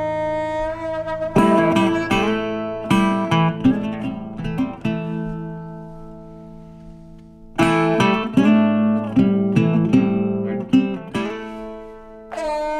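Background music: acoustic guitar in a blues style, plucked and strummed chords that ring out. About halfway through one chord is left to fade for a couple of seconds before the playing picks up again.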